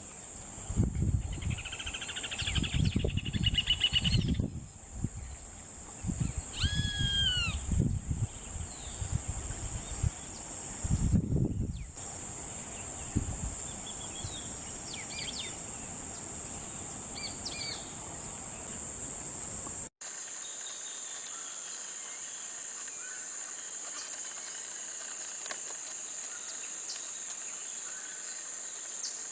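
Wetland ambience: a steady high insect buzz throughout, with scattered bird calls, among them a warbling call a few seconds in and a short two-note falling call near the seven-second mark. Low rumbles come and go during the first twelve seconds, and about twenty seconds in the sound cuts abruptly to a cleaner stretch of the same insect and bird chorus.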